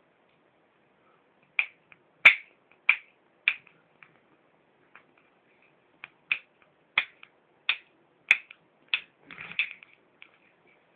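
A run of short, sharp clicks, about one every half second or so: four in a row, a pause, then about six more, ending in a short rustling burst.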